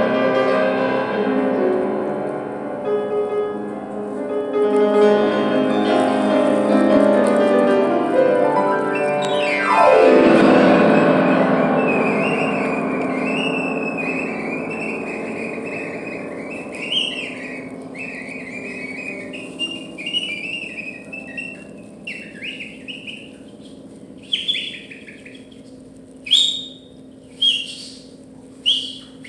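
Grand piano played busily with the sustain pedal down, ending about ten seconds in with a fast downward sweep across the keys that is left to ring and slowly fade. Over the fading piano come high, bird-like chirping and warbling whistles, which turn into short, sharp chirps near the end.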